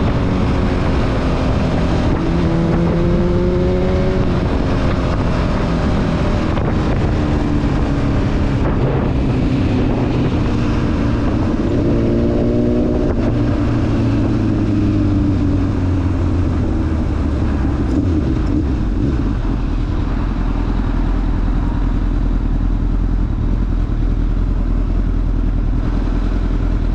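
Honda CBR1000RR's inline-four engine running as the bike rides and slows down, its pitch rising and falling with throttle and gear changes, with wind rushing over the microphone. It settles to a steady low idle for the last several seconds.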